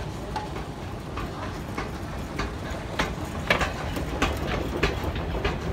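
Moving walkway running: a steady low rumble with regular clicks about every half second, louder from about three seconds in.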